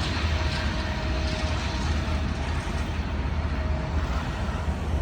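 Loaded steel-coil freight train climbing a steep grade. Its diesel locomotives are working hard under load, giving a steady low rumble over the noise of the rolling wheels on the rails.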